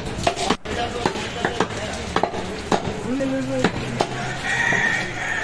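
Irregular sharp knocks of a knife striking a cutting block as goat meat is cut, about ten strikes.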